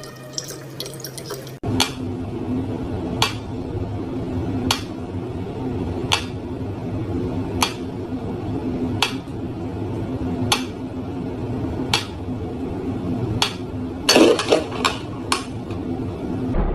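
Pyramid-shaped mechanical pendulum metronome ticking slowly and evenly, one sharp tick about every second and a half, over a steady low room hum. Near the end the ticks give way to a short cluster of knocks and clatter. At the very start, water runs briefly from a tap into a plastic bottle.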